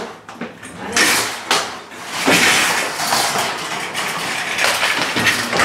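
A wire-mesh metal trolley being wheeled over a ridged entrance mat, its basket rattling and clattering, with several sharp knocks in the first two seconds or so.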